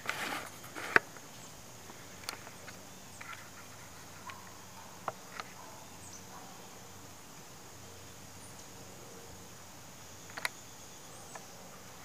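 Quiet outdoor background with a steady high-pitched insect trill. A rustle and a sharp click come about a second in, and a few fainter clicks follow.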